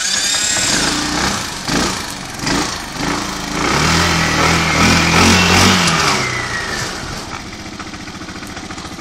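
Kymco Xciting 250 scooter's single-cylinder four-stroke engine running just after starting. It is revved once about four seconds in, rising and falling, then drops back to a steady idle. The seller presents the engine as running perfectly.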